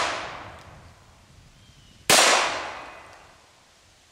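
A single .22 Long Rifle shot from a Taurus Model 94 stainless double-action revolver about two seconds in: a sharp crack that dies away over a second or so. The tail of the previous shot is fading out at the start.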